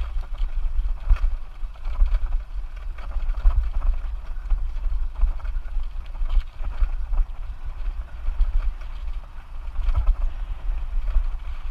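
Wind buffeting the microphone, with irregular rattles and knocks from a bicycle riding fast over a bumpy dirt trail.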